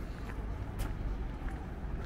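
Footsteps of a person walking, a short crunch roughly every half second or so, over a steady low rumble.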